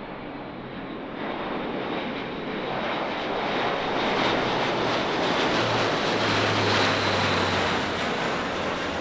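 Airbus A400M's four turboprop engines and propellers in a display pass, the engine noise growing louder from about a second in, loudest in the middle and easing slightly near the end, over a steady low propeller hum.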